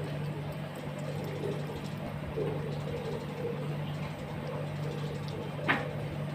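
A mongoose eating raw chicken from a stainless steel bowl, with faint irregular feeding sounds over a steady low hum. One sharp clink near the end is the loudest sound.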